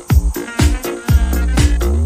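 Background music: an upbeat track with a steady beat, about four strokes a second, over a held bass line.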